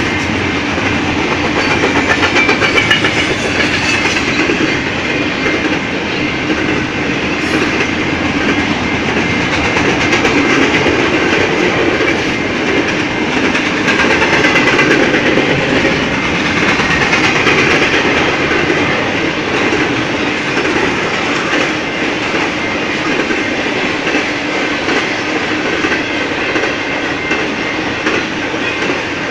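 Double-stack intermodal container train passing close by: a steady rolling noise of steel wheels on rail, with wheels clicking over the rail joints.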